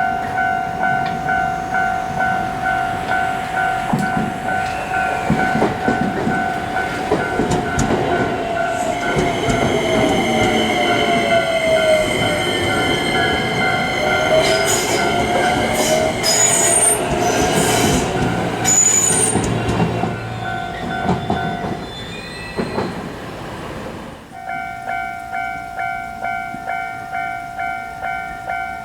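Japanese railroad crossing warning bell ringing with a steady, even kan-kan beat while a train passes over the crossing. The train passing brings wheel noise, a motor whine that rises and falls, and high wheel squeals. A few seconds before the end the bell stops briefly, then starts ringing again.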